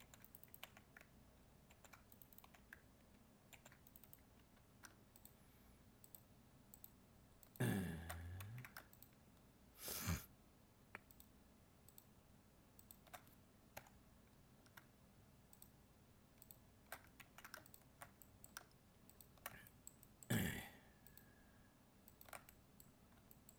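Faint, scattered clicks of a computer mouse and keyboard. About eight seconds in comes a short low vocal sound that falls in pitch, and there are brief louder rushes of noise near ten seconds and again around twenty seconds.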